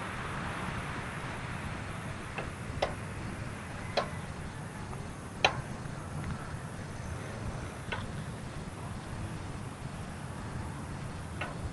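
Bicycle ride over rough ground: a steady low rumble with a sharp click or knock every second or two, rattles from the bike over bumps.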